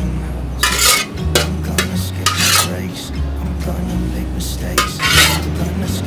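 Metal spatula scraping and clinking against a ceramic bowl as stir-fried greens are scooped into it, in a run of short scrapes, over background music.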